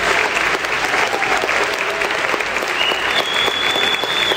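A large crowd of children applauding steadily. A thin, high, steady tone rises and holds over the clapping for the last second and a half.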